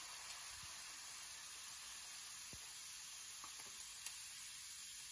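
Baking soda and vinegar reaction fizzing: a faint, steady hiss of foam bubbles popping.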